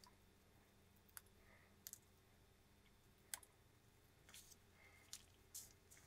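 Faint, irregular clicks and scratches of a hobby-knife blade tip picking at and lifting pieces of a stencil sheet on a cutting mat, about half a dozen sharp ticks with the sharpest about halfway through.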